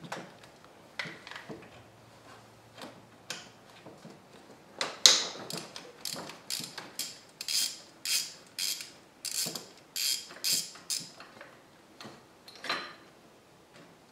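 Hand ratchet wrench clicking as a 12 mm bracket bolt on the alternator is backed out. A few faint clicks at first, then from about five seconds in a steady run of ratcheting strokes, about two a second, with one last stroke near the end.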